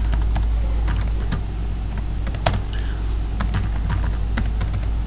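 Computer keyboard keys clicking in slow, irregular keystrokes as a word is typed, one click louder about halfway through. A steady low hum runs underneath.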